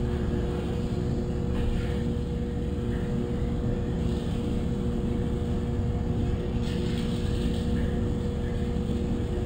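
A motor or small engine running with a steady hum and low rumble, unchanged throughout, with a few faint brief rubbing sounds over it.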